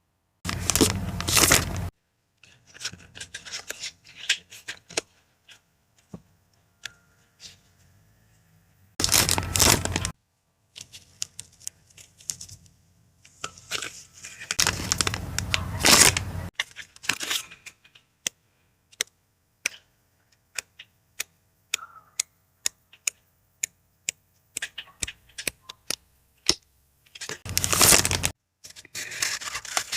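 Paper and packaging being torn open and handled: four loud tearing rips, with many small sharp clicks, taps and rustles between them.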